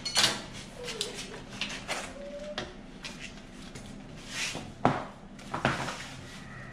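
A string of irregular knocks and clatters of metal parts being handled and fitted during snow blower assembly, the sharpest knock about five seconds in.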